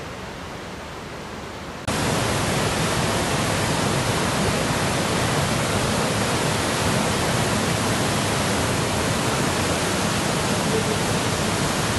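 A flooded, muddy river in spate rushing past: a steady noise of fast water that turns abruptly louder about two seconds in.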